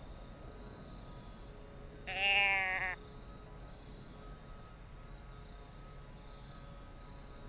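A deer bleat call sounding one doe bleat about two seconds in, lasting just under a second, with its pitch wavering slightly and dropping at the end.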